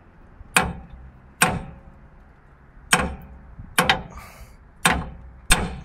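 A hammer striking the end of the old steering stabilizer shock's mounting stud, about six sharp metal blows at uneven spacing, to drive the stuck stud out through the tie rod.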